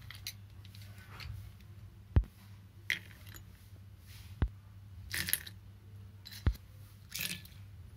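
Ice cubes spooned into glasses of drink: about five sharp clinks of ice and a metal spoon against glass, the loudest about two seconds in, with short rattling splashes of ice dropping into the liquid.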